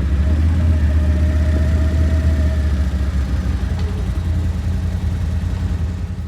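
Car driving on the road, a steady low engine and road rumble that cuts off abruptly at the very end.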